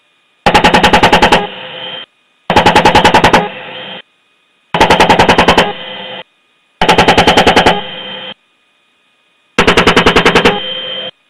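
Apache's 30 mm M230 chain gun firing five short bursts of about ten rounds each, roughly two seconds apart, each burst ending in a brief duller tail.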